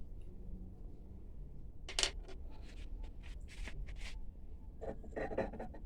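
Light scratching and rubbing of small parts being handled, a short cluster about two seconds in and another near the end, over a low steady hum.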